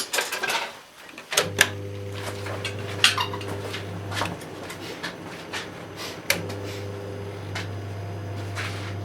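Microwave oven being started: a few clicks and knocks from the door and controls, then the oven's steady low hum starts about a second and a half in. The hum stops briefly around four seconds and starts again with a click about six seconds in.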